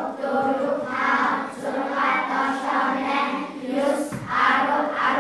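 A class of children's voices reading aloud together in unison, chanting the words in a steady rhythm.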